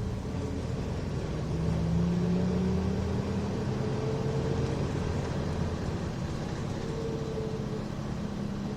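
Nissan Diesel Space Runner RM city bus (KC-RM211GSN, five-speed overdrive manual) driving along, heard from inside the cabin: a steady engine drone, slightly louder about two seconds in, with a fainter higher whine that rises gently in pitch twice.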